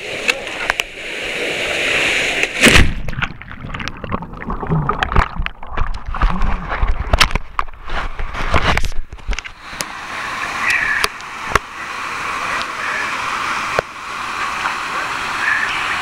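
A person jumping into a deep creek pool: a loud splash of water entry nearly three seconds in, then several seconds of muffled gurgling and sloshing heard from under the surface. After surfacing, the steady rush of a small waterfall.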